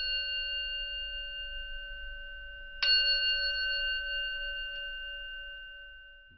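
A bell ringing out with a clear, slowly fading tone, struck again about three seconds in.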